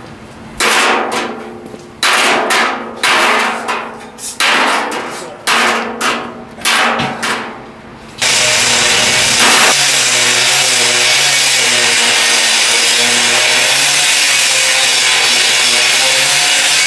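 About seven sharp metal strikes on a steel drum, roughly one a second, each ringing briefly and fading. About eight seconds in, an angle grinder starts cutting the steel drum and runs on without a break.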